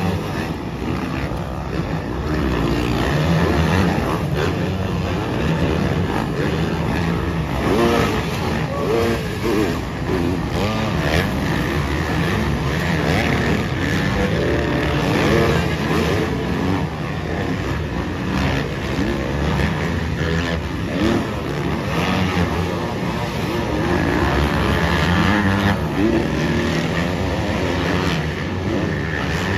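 Several motocross bikes racing, their engines revving up and falling back again and again, the overlapping rising and falling engine notes blending into one continuous din.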